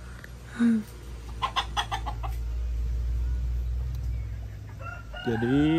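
Domestic chickens clucking: a quick run of sharp clucks about a second and a half in, after a single short call, over a low steady rumble.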